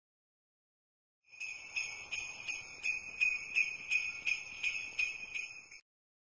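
Jingle bells shaken in a steady rhythm, about three shakes a second. They start after a second of silence and stop suddenly near the end.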